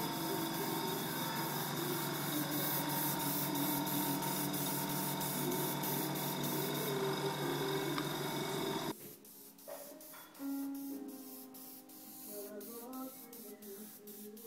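Airbrush spraying paint: a steady hiss with a low hum underneath, cutting off abruptly about nine seconds in. Soft background music follows.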